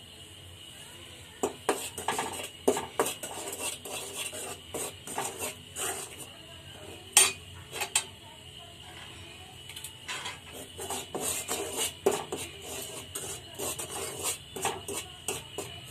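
Steel ladle stirring and scraping dry rice flour around a stainless steel kadai, giving irregular metal-on-metal clinks and scrapes while the flour is dry-roasted. One sharper clink comes about seven seconds in, and there is a short lull about halfway.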